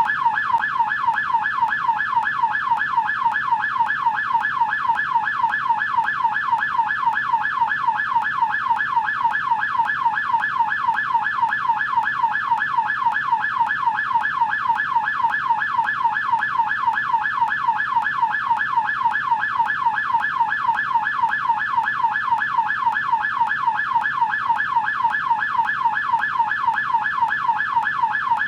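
American police car siren in yelp mode: a high-pitched wail sweeping rapidly up and down over and over, steady and unbroken.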